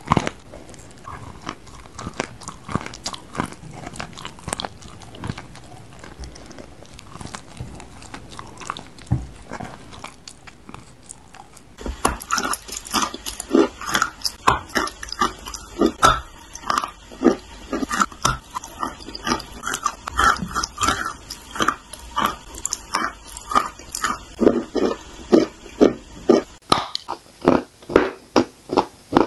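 Close-up crunching and chewing of chalk: pieces bitten off and chewed. The crunches are soft at first and grow much louder about twelve seconds in, going on evenly at about two a second.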